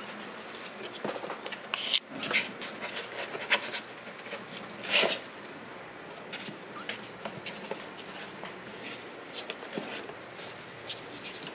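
Kittens' claws scratching and scrabbling on a cardboard box, in short scratchy strokes, loudest about five seconds in.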